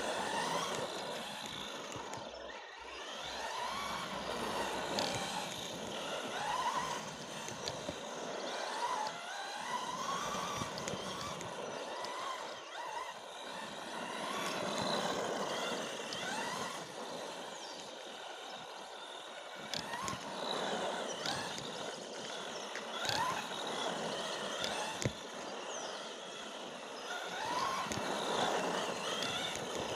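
Electric RC car's motor whining, rising and falling in pitch over and over as the car speeds up and slows, with a steady hiss of the tyres on the ground.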